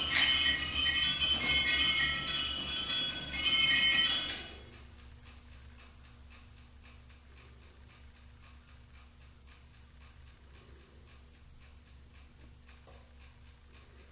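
The clock's nest of eight bells rings rapidly in a run of overlapping tones while the animated mechanism plays, stopping abruptly about four and a half seconds in. After that only the faint, even ticking of the brass fusee movement with its duplex escapement is heard.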